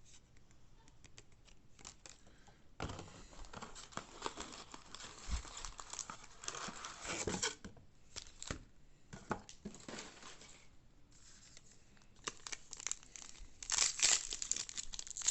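Foil wrapper of a baseball card pack being torn open and crinkled, in rustling bursts that come and go, loudest near the end.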